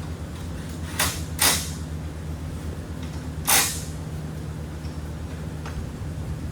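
Steady low hum with three short, sharp noises: two close together about a second in and one about three and a half seconds in.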